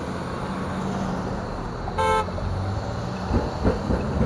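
Street traffic running steadily, with a single short vehicle-horn toot about two seconds in. A few dull bumps follow near the end.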